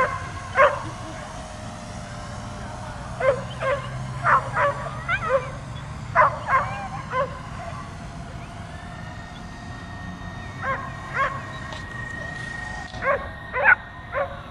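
A dog barking repeatedly at a drone flying above it, in clusters of two or three short sharp barks with brief pauses between, a few barks bending up in pitch like yips.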